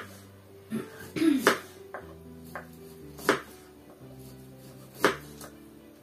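Slow background music of held chords changing every second or two, with a few sharp knocks of knives on cutting boards as boiled eggs and sausage are sliced.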